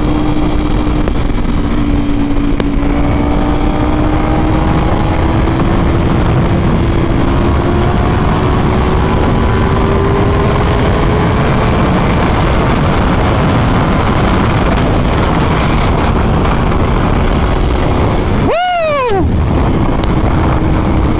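Ducati Panigale V4R's 998 cc V4 engine through an Akrapovic exhaust, heard from the saddle while riding: a steady engine note slowly climbing in pitch under a constant rush. Near the end the revs flick up and drop away quickly.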